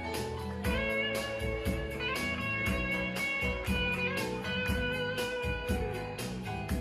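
Live band playing an instrumental passage with no vocals: electric guitar over a bass line with a steady beat.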